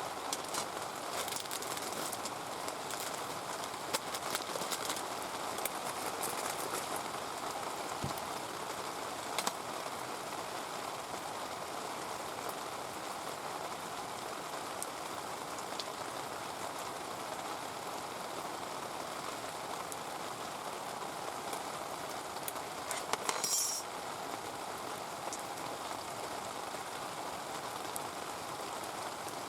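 Heavy rain pouring down steadily, with scattered small clicks in the first few seconds and a brief high hiss about 23 seconds in.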